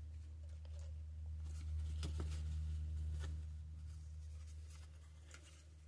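Faint rustles and light taps of trading cards being handled, a little louder about two seconds in, over a steady low electrical hum.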